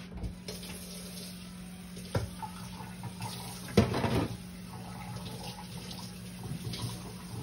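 Kitchen tap running as a bowl is rinsed in the sink, with two clunks from the bowl against the sink; the second, about four seconds in, is the louder.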